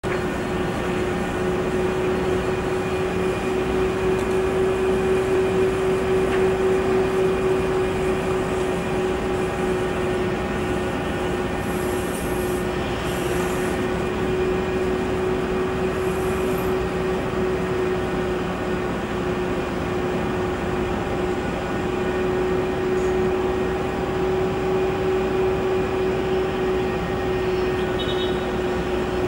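Steady jet aircraft noise at an airport: an even rumble with a constant mid-pitched whine held at one pitch.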